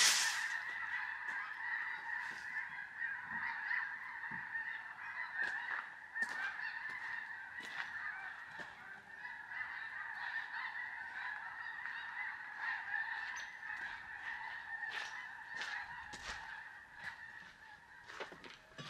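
A flock of geese honking, many calls overlapping without a break, dying away near the end.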